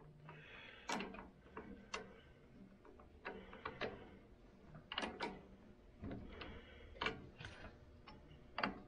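Scattered light metallic clicks and clinks from the compound slide crank handle of a mini metal lathe being handled and turned while the tool post is lined up. The clicks are faint, about ten of them at uneven intervals.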